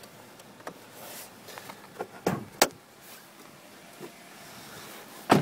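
Clunks and knocks from opening the hood of a 2006 Nissan X-Trail: the hood release is pulled and the latch pops. There are two sharp clunks about two and a half seconds in, lighter knocks between, and the loudest thud near the end.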